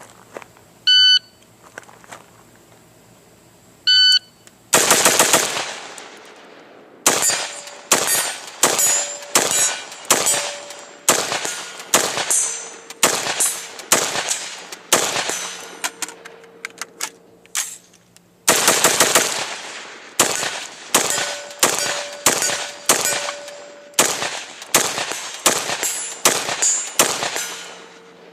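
Two electronic beeps from a shot timer, then an AR-15 firing .223 rounds semi-automatically as fast as it can be aimed, shot after shot with sharp reports. About two-thirds of the way through there is a pause of about two seconds for a magazine change, then a second string of shots.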